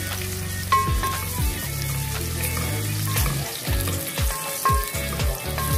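Sliced onions sizzling as they fry in plenty of oil in an aluminium pot, stirred with a wooden spoon. A bass-heavy music beat thuds underneath about twice a second.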